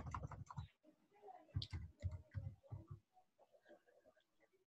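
Faint computer keyboard typing: a quick run of key clicks at the start, then about six separate keystrokes between one and a half and three seconds in.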